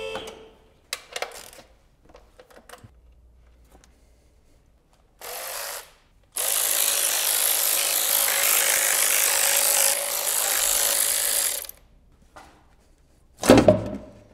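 Cordless electric ratchet spinning the bolts out of a BMW M70 V12's steel oil pan: a short burst about five seconds in, then a steady run of about five seconds. A few light clicks come before it, and a loud clunk near the end as the pan is handled.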